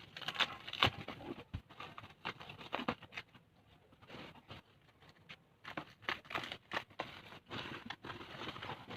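Hands unboxing a DVD box set: scattered rustling of packaging and light knocks of the box and its contents being handled, quieter for a couple of seconds in the middle.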